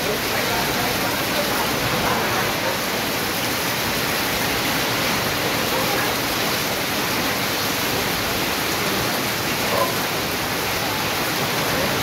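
Heavy rain pouring steadily onto corrugated metal roofing and leaves, a constant even rush.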